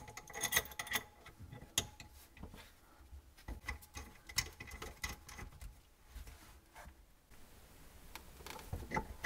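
Faint, irregular clicks and taps of a chrome angle stop valve and its brass compression fitting being handled, as the water is shut off at the valve and the braided supply line is unscrewed.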